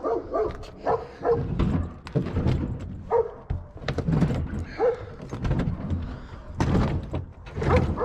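A dog barking repeatedly in short, loud barks at uneven intervals.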